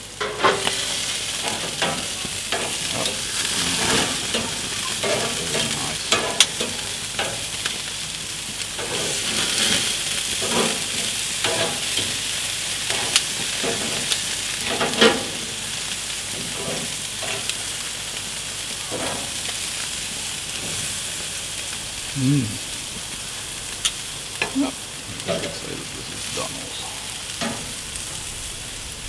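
Chunks of meat sizzling on a hot gas grill's grate in a steady hiss. Scattered clicks and clinks come from metal tongs turning the pieces.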